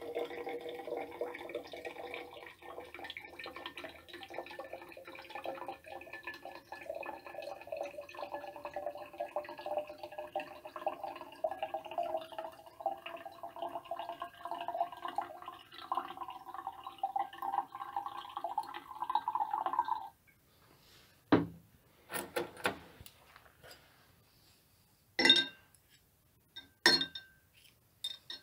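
Liquid poured in a steady stream into a glass bottle, the tone of the filling rising steadily as the bottle fills; the pouring stops about twenty seconds in. Several separate clinks follow, rusty steel plane irons set into the glass bottle.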